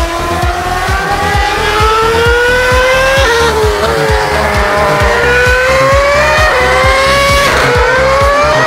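Formula 1 car's 2.4-litre V8 engine at full throttle, a high-pitched note climbing steadily and dropping back at each upshift as the car accelerates out of a corner.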